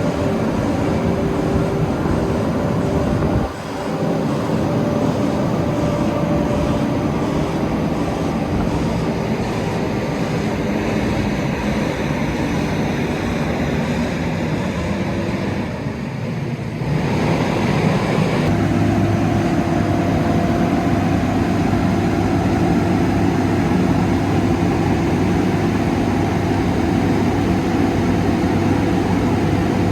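Diesel engine of a Vögele Super 1803-3i asphalt paver running steadily. The note dips briefly about three and a half seconds in, then changes about seventeen seconds in to a steadier, deeper hum.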